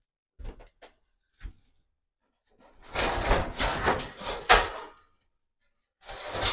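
A door being pushed open into a small room: a few light knocks, then two long stretches of scraping and rattling with sharp clicks, the second starting about six seconds in.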